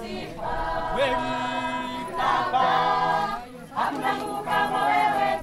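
A group of voices singing a cappella, in chant-like phrases of held notes about a second long with short breaks between them.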